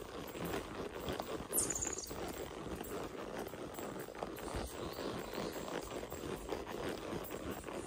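Quarter horse walking on a dirt woodland trail, its hooves clopping in a steady walking rhythm. About one and a half seconds in there is a brief high-pitched sound.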